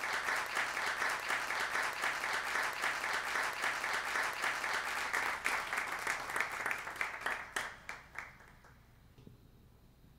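A small audience applauding, the clapping thinning out to a few last scattered claps about eight seconds in.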